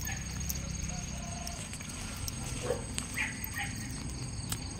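Faint outdoor background: a steady low rumble and a thin, continuous high insect drone, with a few short, faint animal calls a little past halfway.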